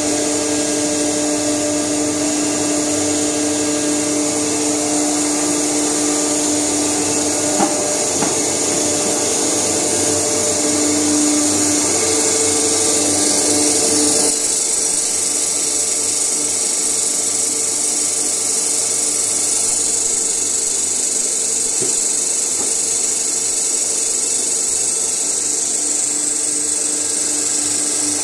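Muller Martini Panda clamp binder and gatherer line running: a steady mechanical hum and air hiss with a few held tones that drop away about fourteen seconds in, and a single click about seven and a half seconds in.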